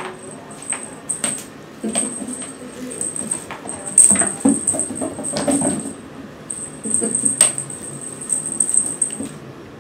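Cat wand toy jingling in bursts, with scattered clicks and taps as cats bat at it on a hard floor.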